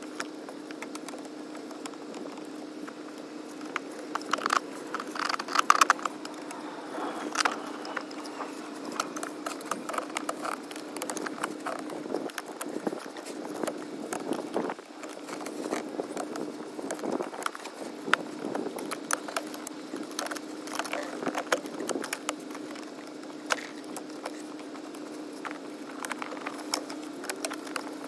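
Scattered small metallic clicks and clinks of a spanner working the 11 mm brake-pipe nuts on the ABS unit, a cluster of louder ones about five seconds in, over a steady hum.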